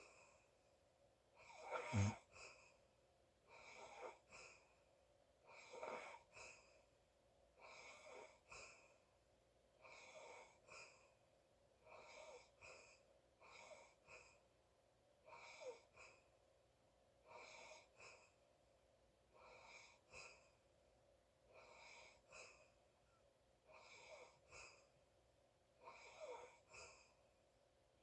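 Faint snoring breaths of a sleeping person, about one every two seconds, each a short two-part sound with a high whistle. One louder, deeper snort about two seconds in.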